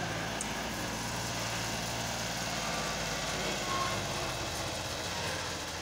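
Tractor diesel engine running steadily as it slowly pulls a trailer heaped with sand.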